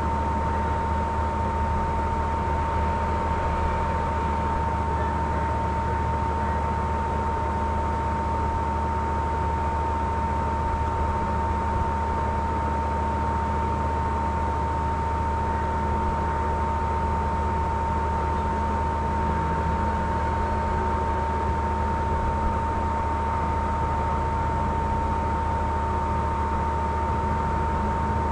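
Steady hiss and low hum with a constant single-pitched tone.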